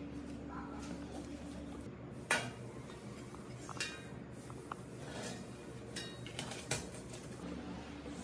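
Hard metal objects clinking and tapping: about six separate light knocks, each with a short metallic ring, over a faint steady hum.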